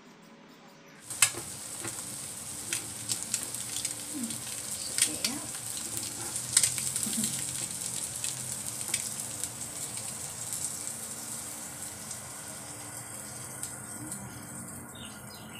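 Quail eggs and sausages sizzling on an electric grill pan. It starts suddenly about a second in with a sharp pop, then carries on as a steady sizzle with scattered crackles.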